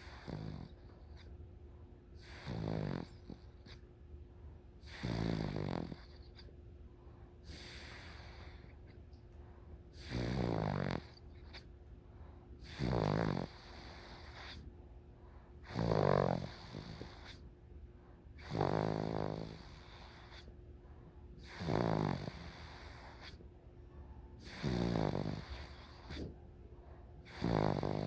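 A sleeper snoring in a slow, even rhythm: about ten rough snores, one every two and a half to three seconds, each lasting about a second, with quieter breathing between.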